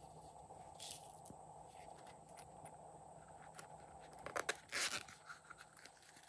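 Small plastic toy case being handled with light clicks and taps, then a few sharp plastic clicks and a short, louder rattling rustle about four and a half seconds in as the case is opened and its contents tip out.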